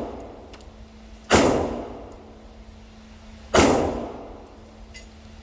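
Two pistol shots a little over two seconds apart, each sharp report trailing off in a ringing decay; the tail of an earlier shot fades away at the start.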